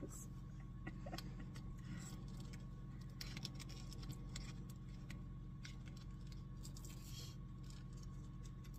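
Faint crinkling and small clicks of plastic snack packaging being handled and worked open, scattered irregularly over a steady low hum.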